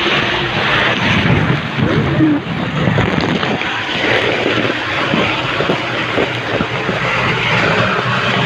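Spring water splashing and rushing close to the microphone, a loud steady rush with scattered knocks from the camera being handled.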